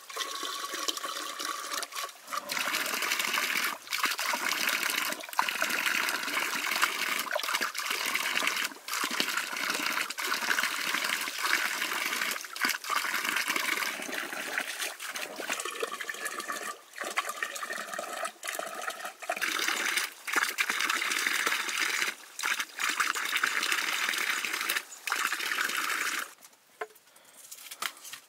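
Water running and splashing: a steady rushing noise broken now and then by brief gaps, stopping shortly before the end.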